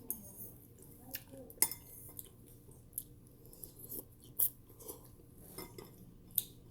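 Eating utensils clicking and scraping against a bowl of noodles: scattered sharp clinks, the loudest about a second and a half in, more near four and a half and six and a half seconds.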